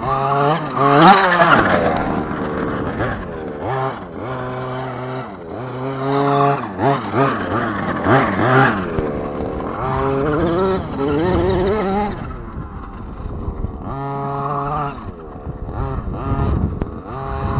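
Redcat Rampage MT V3 RC monster truck's small two-stroke gas engine, revved hard again and again with quick rises and falls in pitch, dropping back to a steady idle between runs.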